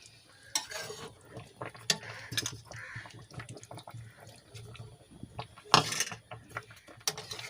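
Momos being stirred in a wet sauce in a cooking pan as cornflour slurry is added: sloshing liquid with irregular scrapes and knocks of the spoon, the loudest knock about six seconds in.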